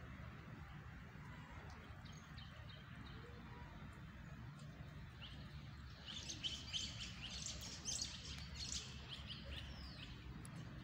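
Birds chirping: a quick run of short, high calls and falling whistles that starts about halfway through and lasts some four seconds, over a steady low background noise.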